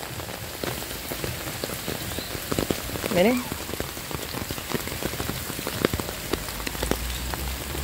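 Steady heavy rain falling on an open umbrella held overhead: many sharp, close drop hits over an even hiss of rain on the wet ground and plants.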